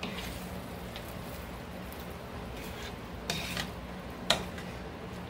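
A cooking utensil knocking lightly against a frying pan as the cornstarch-thickened sauce is stirred, a few soft clicks and one sharper click about four seconds in, over a steady low hum.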